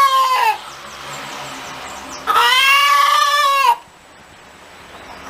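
Chicken calling: two long, drawn-out calls with a slight drop in pitch at the end, the first ending just after the start and the second about two seconds in.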